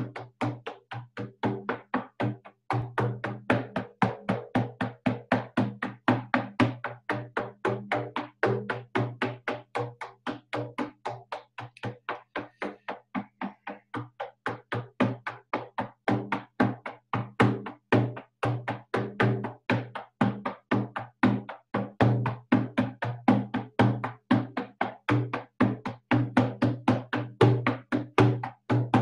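Hand-held frame drum with a painted hide head, struck with a beater in a steady, fast shamanic journey beat of about four strikes a second, each stroke ringing low. A short break comes about two and a half seconds in, and the strokes are softer for a few seconds in the middle.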